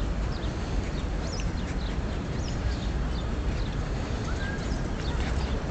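Small birds chirping again and again in short, high calls, over a steady low rumble of outdoor noise.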